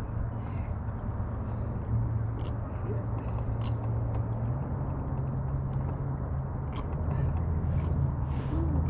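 Boat motor running steadily at trolling speed, a low drone whose pitch steps up about halfway through.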